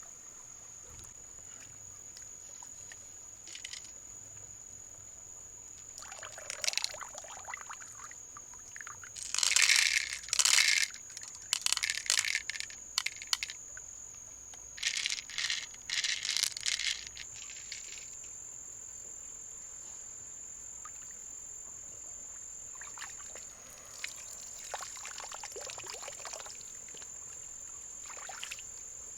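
A steady, high-pitched insect trill, like a cricket, runs throughout. Over it come several bursts of splashing, pouring water, the loudest about ten seconds in.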